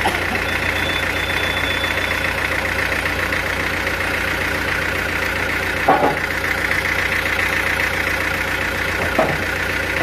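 Sawmill machinery running steadily with an even, engine-like drone. Two short sharp sounds stand out, about six and nine seconds in.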